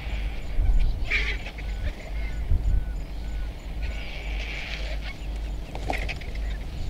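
Vultures squabbling over a carcass, giving harsh squealing and hissing calls in bouts, with a louder outburst about a second in. Near the end comes a flurry of short sounds as the flock takes off, over a steady low rumble.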